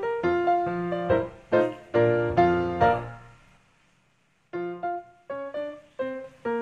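Background music on a keyboard, a quick run of notes that dies away about three seconds in, leaving a second or so of near silence before the notes start again.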